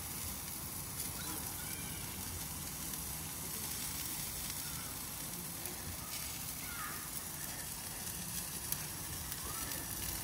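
Tomahawk steak sizzling as it cooks: a steady hiss with scattered faint crackles.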